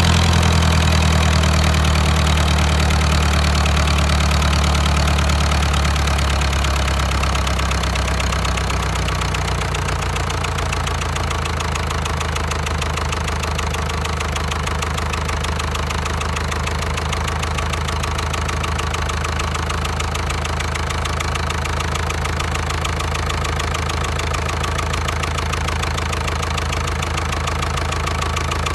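Diesel engine running, its speed and loudness easing down over the first several seconds, then idling steadily.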